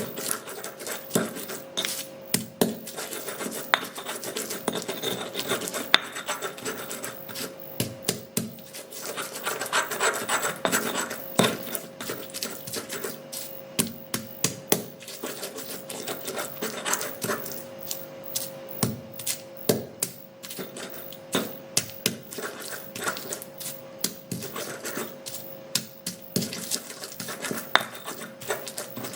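Spices being ground by hand with a stone pestle in a cobek (stone mortar): continuous gritty rubbing and scraping of stone on stone, broken by frequent sharp knocks and clicks as the pestle strikes and rolls.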